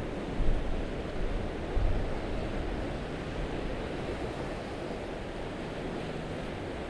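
Steady wash of ocean surf against the rocks, with wind buffeting the microphone in two brief gusts about half a second and two seconds in.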